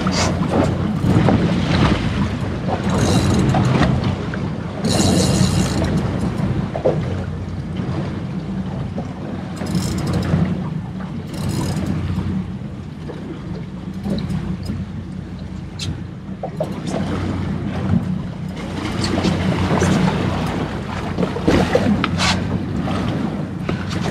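Outboard motor idling with a steady low hum under wind buffeting the microphone, with several short bursts of splashing as the hooked tuna thrashes beside the boat.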